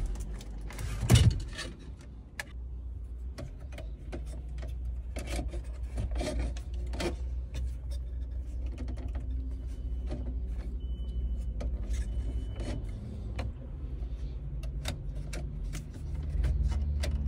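Clicks, taps and knocks of a car radio head unit's metal case and plastic dash trim being handled as the unit is pulled out of the dashboard and its connectors worked at, with one louder knock about a second in. A steady low hum runs underneath.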